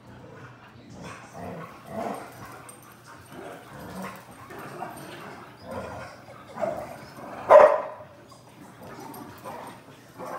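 A group of Chow Chows barking and yipping now and then in short scattered outbursts, the loudest a single bark about seven and a half seconds in.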